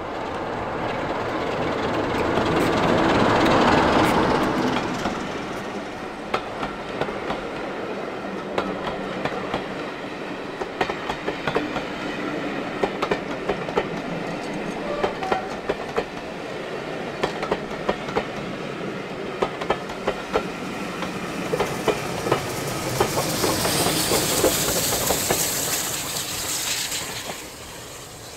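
A train passes: a diesel locomotive's engine builds to a peak about four seconds in, then coaches roll by with a clickety-clack of wheels over rail joints. Near the end a steam locomotive at the rear goes past with a loud hiss of steam before the sound falls away.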